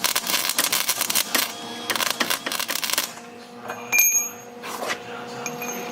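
MIG welder crackling in two short welding bursts of a second or so each, laying beads to fuse rebar extensions onto steel drag-bar teeth, followed about four seconds in by a single sharp metallic clink that rings briefly. A steady low hum runs underneath.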